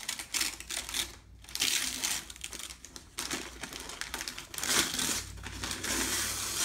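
Wrapping paper being pulled and crumpled off a gift box by hand, in irregular rustling, crinkling bursts.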